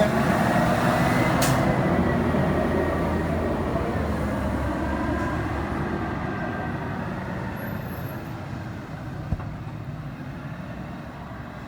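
Garbage truck engine running as it drives away, fading steadily, with a sharp click about a second and a half in.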